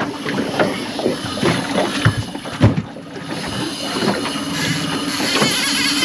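Outboard motor running steadily under a string of knocks and thumps on an aluminium boat as a trolling rod is pulled from its holder on a strike.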